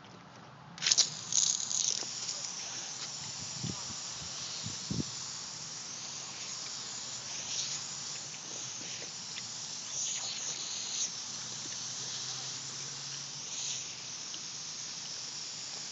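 Lawn sprinkler head spraying water: a sudden loud gush about a second in, then a steady hiss with brief splashy surges as a French bulldog mouths the head.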